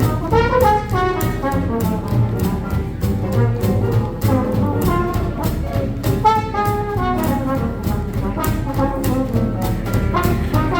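Small swing jazz band playing an instrumental chorus: a brass horn takes a solo, its melody running up and down over a steady rhythm-section beat.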